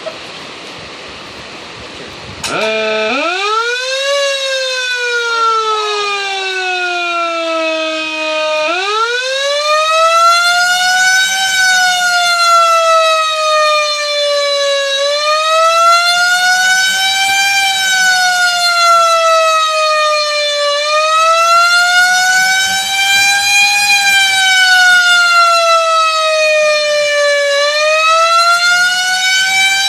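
Battery-powered electric motor siren switching on with a click about two and a half seconds in and winding up into a loud wail. Its pitch sags, climbs again, then rises and falls about every six seconds.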